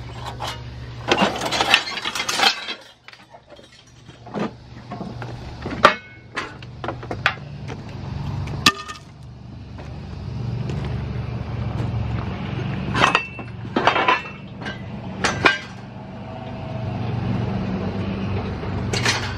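Pieces of scrap metal clinking and clanking as they are handled and knocked together, scattered sharp knocks, some with a short metallic ring, over a steady low hum.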